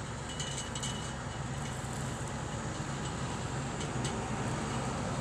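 Fendt 724 tractor engine running steadily under load while pulling a six-furrow reversible plough, as a low hum that slowly gets louder.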